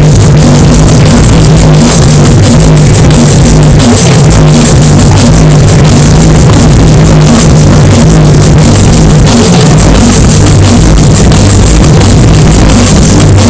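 Neurofunk drum and bass DJ mix played loud over a sound system, with heavy bass and a steady drum beat.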